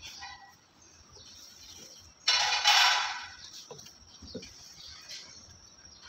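Handling noise from unpacking pressure washer parts: a loud rustling scrape about two seconds in that lasts about a second, with a few light knocks of plastic parts being fitted together. A faint steady high hiss runs underneath.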